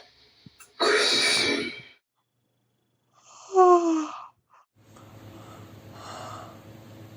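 A person yawning: a long, loud breathy intake of air, then a short voiced yawn falling in pitch. After that a steady low hum and hiss with faint breathy sounds.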